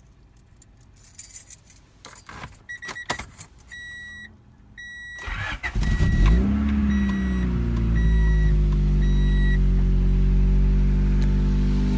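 Keys jangling and clicking into the ignition, with a repeating warning chime beeping. About five seconds in, the Honda Prelude's H23 2.3-litre four-cylinder cranks briefly, catches with a rev flare and settles into a steady idle.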